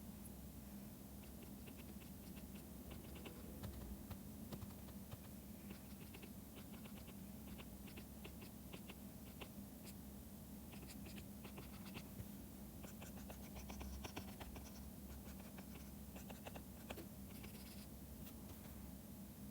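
Faint scratching and tapping of a stylus pen on a drawing tablet, in short irregular strokes, over a low steady hum.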